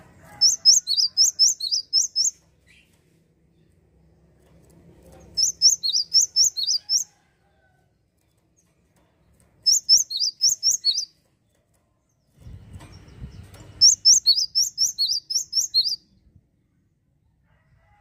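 Cinereous tit (gelatik wingko) singing: four bouts of rapid high notes, about eight to ten notes in each, with pauses of two to three seconds between them.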